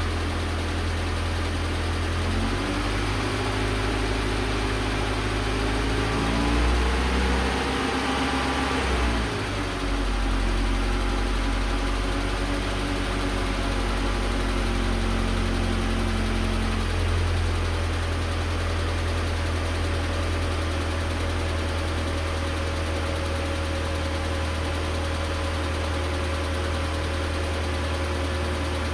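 ZMZ-406 engine running, mostly at idle, with its speed rising for several seconds and then dropping back in the first third. The engine has a knock under the valve cover.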